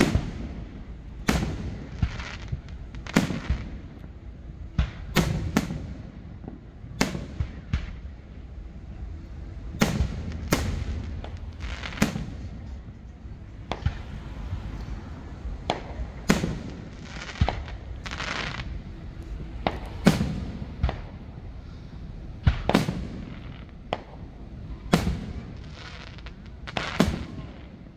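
Aerial firework shells bursting in a continuous barrage: sharp bangs one or two a second, many trailing off in an echo.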